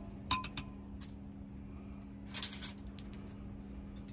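A metal spoon clinking and tapping as an oil seasoning is spooned onto a whole red snapper on aluminum foil: a quick cluster of clicks just after the start and another about two and a half seconds in, over a faint steady hum.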